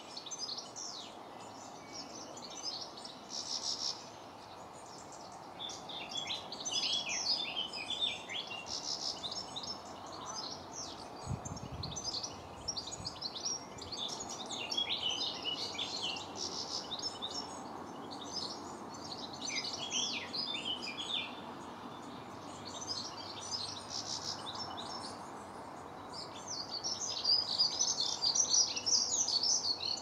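Small songbirds singing: quick, high twittering phrases a second or two long, repeated every few seconds, over a steady low background rumble. A brief low thump comes near the middle.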